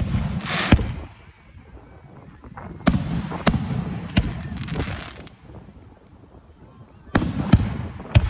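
Aerial firework shells bursting overhead in sharp bangs, about eight in all, in three clusters: two at the start, three about three to four seconds in, and three near the end. A hissing crackle follows the first and second clusters as the stars burn out.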